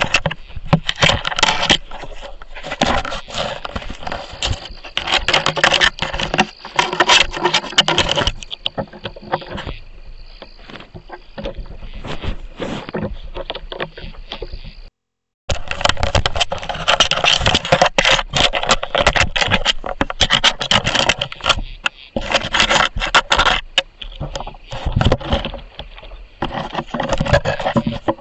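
A furry animal nosing and rubbing against a trail camera right at its microphone: dense, irregular scraping, knocking and rustling of fur and body against the camera housing. The sound cuts out for about half a second around 15 seconds in, then carries on.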